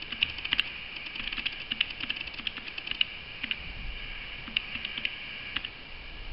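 Keys of a desk calculator being pressed, a run of irregular clicks a few a second, as a column of numbers (3 × 413, 358, 464) is keyed in and added up.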